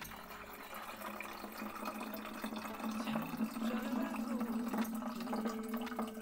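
Liquid poured from a tilted aluminium pot into a plastic strainer, a steady splashing stream that grows louder from about two seconds in.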